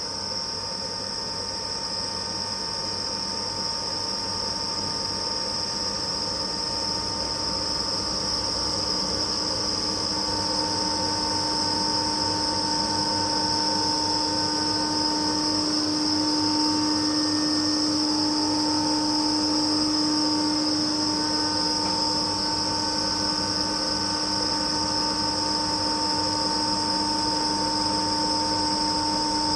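Kaeser SX 6 rotary screw air compressor with its 4 kW electric motor running steadily, a constant whine with a high tone over a mechanical hum, growing a little louder about ten seconds in.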